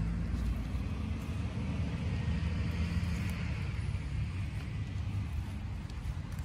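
A steady low rumble of outdoor background noise, with a broad swell of hiss about two to four seconds in.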